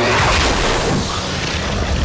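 Film sound effects of a giant serpent smashing into a street: a whoosh near the start, then a heavy low rumbling crash of debris.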